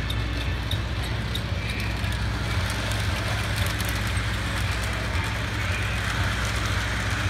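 Toy model train running on its track loop: a steady low rumble with faint, irregular clicking.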